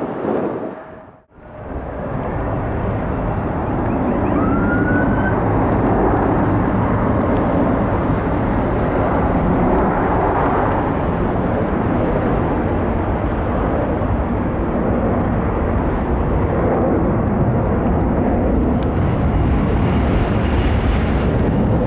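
Jet engines of an arriving Boeing 757-300 airliner, a steady rush of jet noise mixed with wind buffeting the microphone. The sound cuts out briefly about a second in, then comes back.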